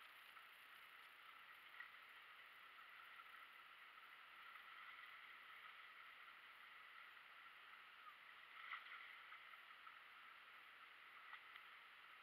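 Near silence: a faint steady hiss, with a couple of faint clicks in the second half.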